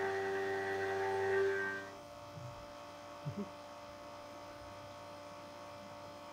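Tormach 1100M CNC mill running a cutting job: a steady whine of several pitches that drops away about two seconds in, leaving a quieter steady machine hum, with two short faint chirps a little over a second later.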